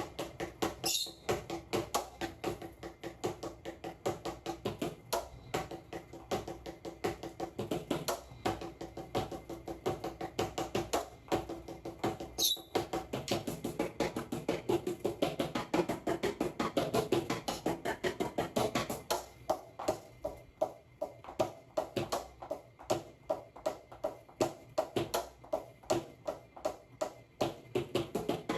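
Drumsticks playing a steady beat on the pads of a homemade PVC-pipe electronic drum kit, heard acoustically without the drum software: a rapid run of sharp knocks, about five hits a second, with the pad cymbal struck among them.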